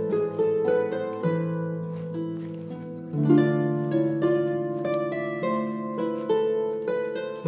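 Background music: a flowing run of plucked string notes over low held notes.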